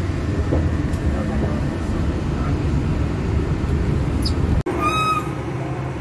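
Steady low rumble of a Walt Disney World monorail car running, heard from inside the car. About three-quarters of the way through it cuts off abruptly to outdoor traffic noise with a brief high tone.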